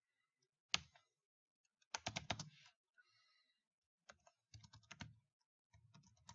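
Quiet typing on a computer keyboard: one keystroke about a second in, then quick runs of keystrokes with short pauses between.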